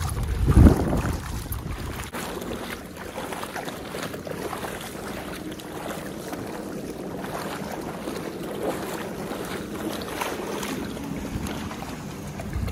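Wind buffeting the microphone, with a strong gust about half a second in, over a steady wash of noise from shallow water sloshing around a wading dog's legs.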